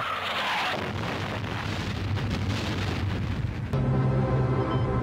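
Missile rushing in with a falling-pitch whoosh, then a long, steady blast of explosion noise as it strikes a ship. The blast cuts off sharply near the end, and a low music drone takes over.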